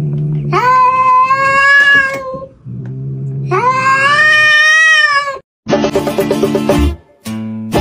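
Orange tabby cat yowling: two long drawn-out calls, each rising at the start and held for about two seconds, with a low steady rumble between them. About five and a half seconds in, it cuts to upbeat background music with a beat.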